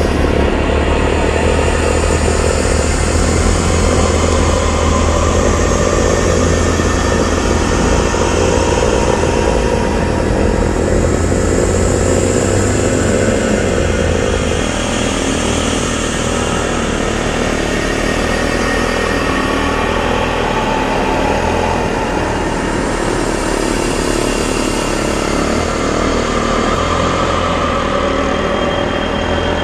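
Irbis Dingo T150 snowmobile's small four-stroke engine running under way, with the track churning through snow. The engine's low drone eases a little about halfway through.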